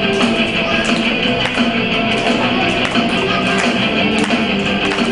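Upbeat backing music with strummed guitar and a steady beat.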